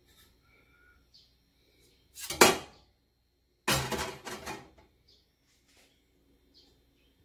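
Copper strips going into a glass pot of water: a sharp metal-on-glass clink with a splash about two seconds in, then a second, longer clatter of strips against the glass and sloshing water about a second later.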